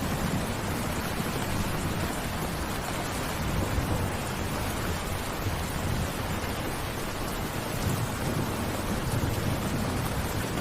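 Steady rain falling, an even hiss, with a low rumble that swells and fades underneath several times.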